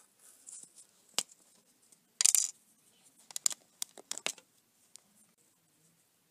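LEGO minifigure parts handled: small plastic clicks and a short rustle of the cloth cape as it is fitted onto the torso. The rustle, a little over two seconds in, is the loudest sound, followed by a quick run of clicks.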